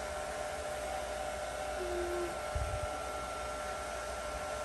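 Steady whirring hum of an electric appliance with two constant tones running through it. A soft low thump about two and a half seconds in.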